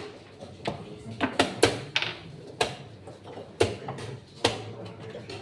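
Wooden chess pieces being set down hard on a wooden board, alternating with chess clock button presses, in fast play: about eight sharp knocks in quick, irregular succession.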